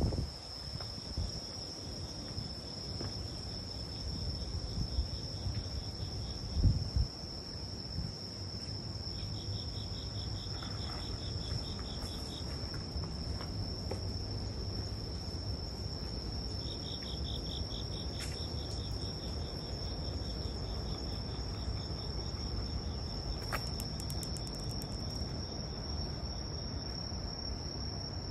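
Insects singing: one holds a steady high trill while another calls in pulsed chirping bursts of a few seconds each, three times. Underneath is a low rumble, with one thump about seven seconds in.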